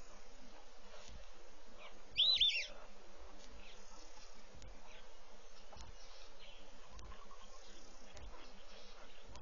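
A bird calls once about two seconds in, a quick run of two or three arched chirping notes, over a steady background hiss with faint insect-like buzzing.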